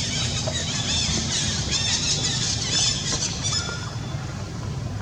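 Baby monkey giving a rapid series of short, high-pitched squealing cries, each rising and falling, as calls for its mother; the cries stop after about three and a half seconds. A steady low rumbling noise runs underneath.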